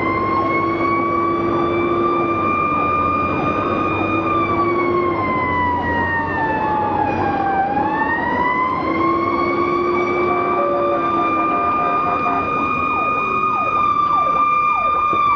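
Fire engine siren wailing, its pitch rising and falling slowly, heard from inside the moving engine. A lower steady tone sounds three times, and quick short chirps run underneath.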